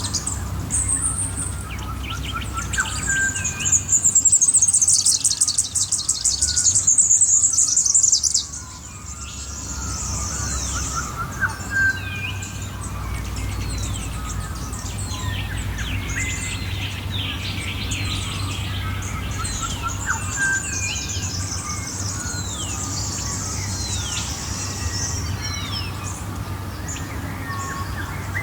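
Dawn chorus of Australian birds singing. A loud, rapid, high-pitched chattering song runs from about four to eight seconds in, then short falling whistled notes repeat about once a second among other calls.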